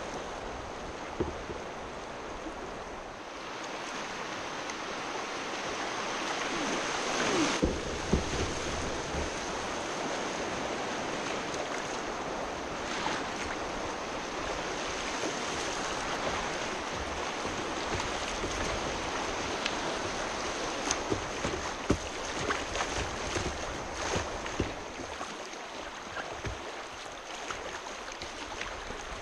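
Shallow river rapids rushing close around a kayak's bow: steady splashing water, loudest about seven seconds in, with scattered sharp splashes and knocks.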